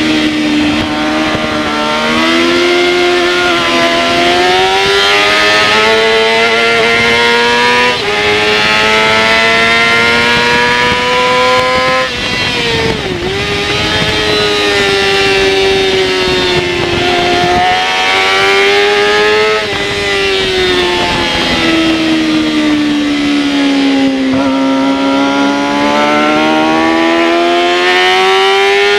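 Yamaha R6 race bike's inline-four engine at racing speed, heard from on board: the note climbs under hard acceleration through the first twelve seconds, dips sharply about thirteen seconds in, falls away between about twenty and twenty-four seconds, then climbs again near the end. Steady wind rush runs underneath.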